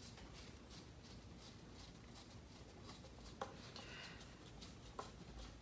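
Faint ticking and scraping of a Phillips screwdriver turned by hand, driving screws into an RC truck's plastic chassis parts, with two small clicks about three and a half and five seconds in.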